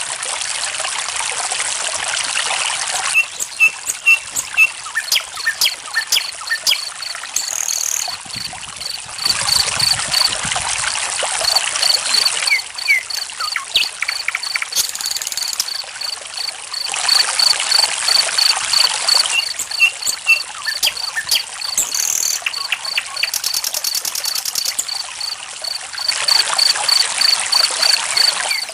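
Running water trickling, swelling louder in spells of a few seconds, with a cricket chirping in a steady high pulse from a few seconds in and scattered short songbird calls over it.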